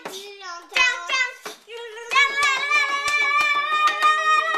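A child's high voice vocalizing without words, the pitch swooping up and down at first, then holding one long wavering 'aaah' from about two seconds in, over quick, uneven clicks and taps.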